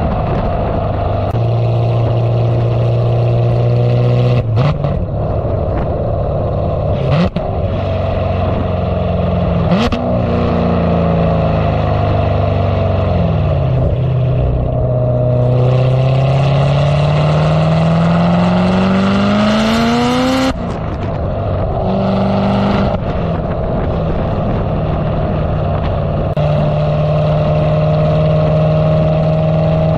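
C7 Corvette Z06's supercharged LT4 V8 exhaust, through American Racing long-tube headers and a catted X-pipe, close to the rear of the car while driving. The revs sag, then climb in a long pull for about seven seconds before dropping sharply at an upshift about twenty seconds in, then settle into steady cruising.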